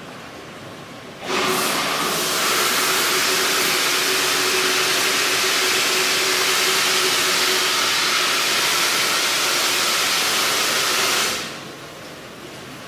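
Loud, steady rushing hiss from the water-treatment equipment of an indoor recirculating fish-farm system, with a faint hum under it. It starts abruptly about a second in and dies away about a second and a half before the end.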